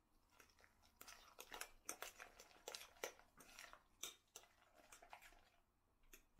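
Faint wet squishing and light clicks of a fork mashing and stirring a thick spread in a glass bowl, in quick irregular strokes that stop about a second before the end, with one last click.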